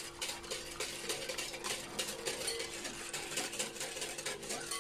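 Wire whisk beating sugar into warm milk in a glass bowl: a quick, even run of clinking, scraping strokes against the glass as the sugar is dissolved.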